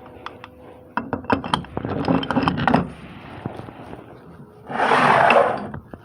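Metal transmission parts clinking and scraping as they are handled, in a quick run of clicks. About five seconds in comes a short rushing hiss lasting about a second.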